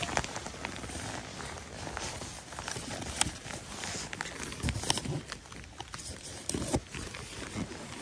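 Fly line being stripped in through gloved hands close to the microphone, with clothing rustling and scattered small clicks and knocks from the rod and reel. The knocks are louder twice around the middle and once near the end.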